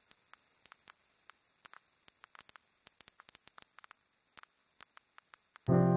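Faint crackling static: irregular clicks and pops over a low hiss. Near the end it gives way to a loud sustained piano or keyboard chord as the song begins.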